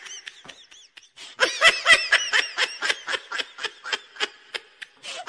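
High-pitched snickering laughter in quick, even pulses, starting about a second and a half in and tailing off near the end.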